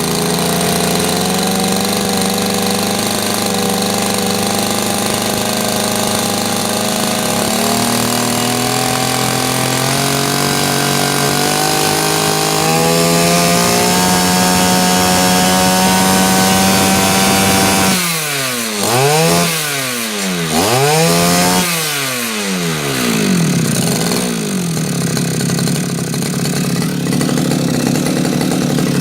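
Two-stroke brush cutter engine running with the throttle opened. Its speed steps up a couple of times, then about two-thirds of the way in it twice drops sharply and climbs back before settling lower. The carburettor is set too rich: too much fuel in the combustion chamber, which makes the engine shake and smoke.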